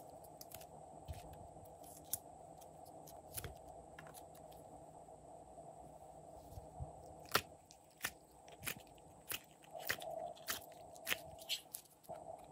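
Hands handling plastic trays and palettes of clay and paint: scattered light plastic clicks and taps, with a run of sharper clicks in the second half, over a faint steady hum.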